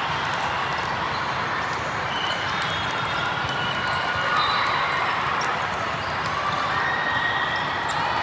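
Indoor volleyball rally: several short squeaks of athletic shoes on a gym floor, with a few sharp slaps of the ball, over a steady background hubbub.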